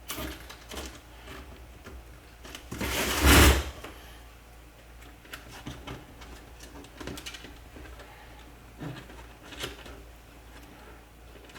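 Zip ties being ratcheted tight on a plastic pet carrier: one loud zipping rattle lasting about a second, about three seconds in, among scattered clicks and knocks of the plastic parts being handled.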